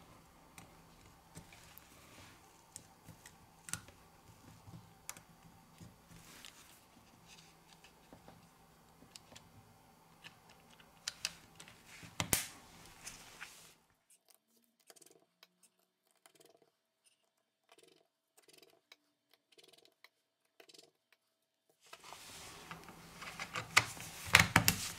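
Faint clicks and taps of tweezers and small parts as a smartphone is put back together, with a sharper cluster of clicks about halfway as the midframe is pressed down. Near the end comes a run of louder snapping clicks as the Xiaomi Redmi Go's back cover is pressed into place.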